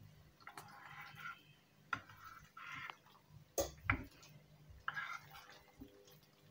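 Faint handling noises over a low steady hum: three short rustles and a few sharp clicks or knocks, the loudest a pair of knocks about three and a half seconds in.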